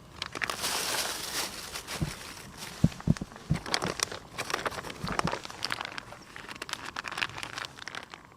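Plastic packaging being handled, crinkling and rustling, with a few dull knocks in the middle.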